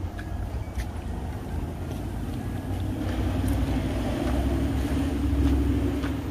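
A motor engine running steadily, growing louder from about three seconds in and loudest near the end, as if passing close by.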